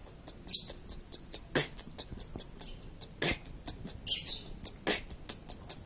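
Vocal beatbox pattern made with the mouth: a kick-drum sound about every second and a half, snare-like hissy bursts between them, and quick hi-hat ticks running through.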